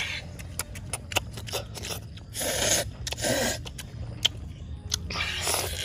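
Close-up eating of boiled stingray: wet chewing and lip smacks with many sharp clicks as flesh is bitten and pulled off the cartilage, and three longer noisy bursts of about half a second each.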